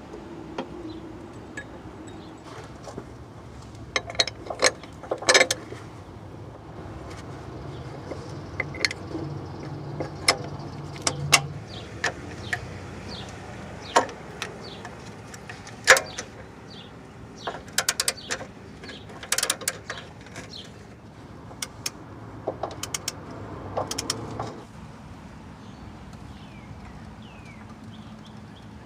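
Metal hand tools and steel bolts clinking and knocking while a motor mount is worked on, with scattered sharp clanks through the whole stretch.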